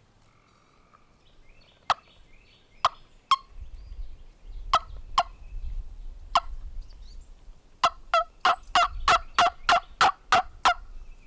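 Turkey yelps and sharp clucks blown on a hunter's turkey call close by. First a few scattered single notes, then a quick run of about ten yelps near the end.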